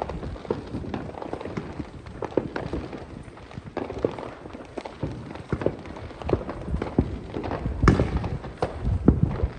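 Fireworks going off, a string of irregular sharp pops and bangs, the loudest about eight seconds in.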